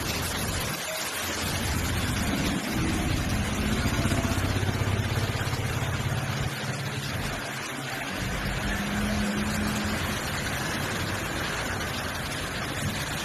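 Steady hiss of heavy rain, with a motor vehicle engine running underneath as a low hum from about two to ten seconds in.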